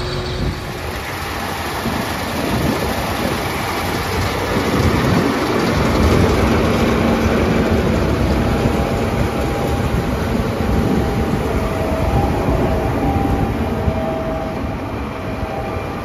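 John Deere S770 combine harvesting wheat, its engine and threshing machinery running with a heavy, steady rumble. It grows louder as the combine passes close, loudest about six seconds in, then slowly fades.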